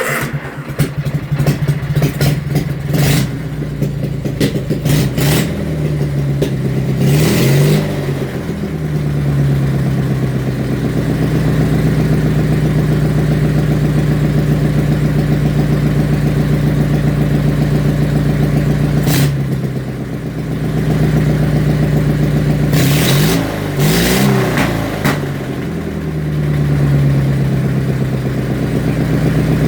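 Kohler Magnum 18 engine running with its muffler cut off, just after a warm start. It idles steadily and is blipped up in several short revs that fall back to idle, a few in the first eight seconds and more in the last ten.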